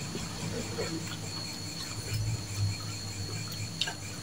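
Quiet eating sounds: soft chewing of bakso meatballs and a light click of a fork or spoon near the end, over a steady high-pitched background whine.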